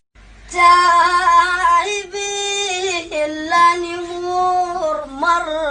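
A child singing an Iraqi song solo: one voice holding long, ornamented notes that waver in pitch, starting about half a second in.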